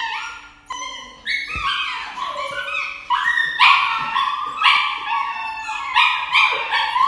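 A dog yelping and crying over and over, high-pitched, about two cries a second, louder from about three seconds in: the distressed cries of a dog being given an injection.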